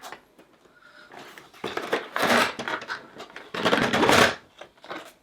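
Rustling and crinkling of toy packaging being handled, in two loud bursts about two seconds apart, with small clicks between them.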